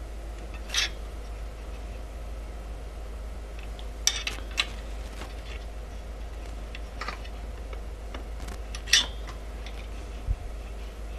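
A small steel open-end wrench clinks against the eccentric nuts and the metal carriage plate while the V-slot roller wheels on a Creality Ender 3's bed carriage are adjusted to take up play. A handful of sharp metallic clicks come at irregular intervals, the loudest near the end, over a steady low hum.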